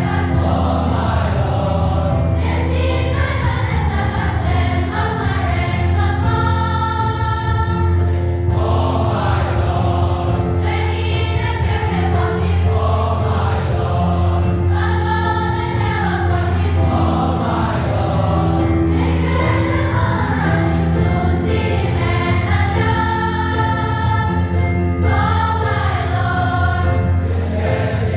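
A choir singing in several voice parts over steady low accompaniment.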